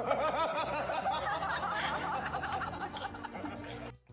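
A woman laughing, a long run of repeated laughter that cuts off just before the end.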